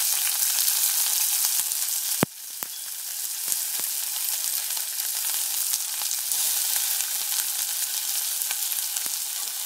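Sliced onions sizzling in hot oil in a steel pan just after going in, loud at first; about two seconds in there is a sharp knock and the sizzle settles into a softer, steady frying with scattered small pops.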